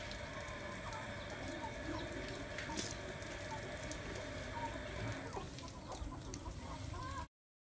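Chickens clucking in short, repeated calls over a steady outdoor background, with one sharp click about three seconds in. The sound cuts off suddenly to dead silence near the end.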